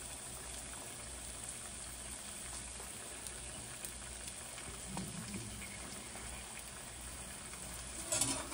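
Eggs frying gently in butter in a cast iron skillet on low heat: a faint, steady sizzle. Just after eight seconds in, a slotted metal spatula scrapes across the pan as it slides under an egg.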